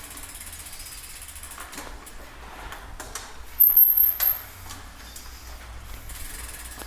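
Bicycle making awful noises: scattered clicks and knocks, with a brief, very high squeal about three and a half seconds in.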